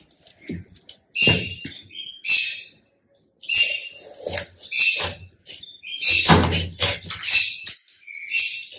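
Kitchen knife cutting through a frozen whole chicken at the wing joint on a plastic cutting board: a series of short, sharp cutting strokes about a second apart, with a few heavier chops around six to seven seconds in.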